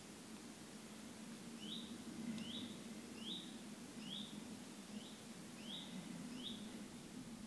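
A small bird repeating a short, rising chirp about seven times, evenly spaced under a second apart, over a faint, steady low hum.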